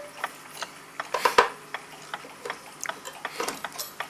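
Screwdriver undoing the screws that hold a clock movement in its case: scattered small clicks and short scrapes, the loudest click just over a second in.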